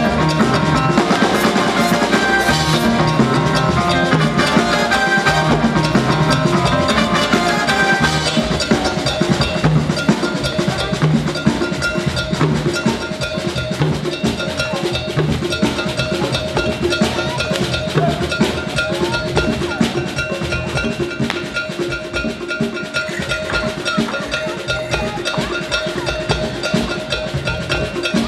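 Live Latin band music with a steady percussion beat. For the first several seconds the full band plays with held melodic notes; after that it thins to mainly drum kit and hand drums keeping the rhythm.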